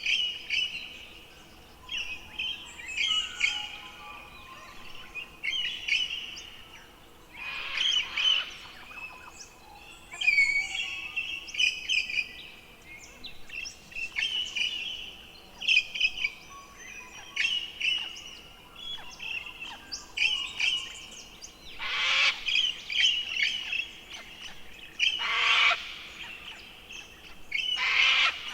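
Forest songbirds singing short, repeated phrases every couple of seconds, broken by a few loud, harsh, rasping calls.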